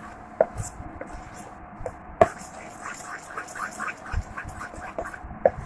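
Spoon stirring thick cake batter in a glass bowl: soft wet squelching, with the spoon knocking against the bowl three times.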